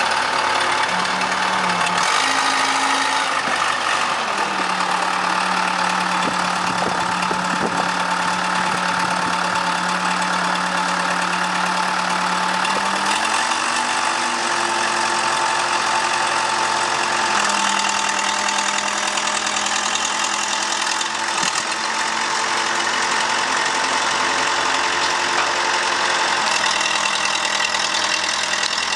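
Case 580C backhoe engine running, its speed rising and settling back a couple of times.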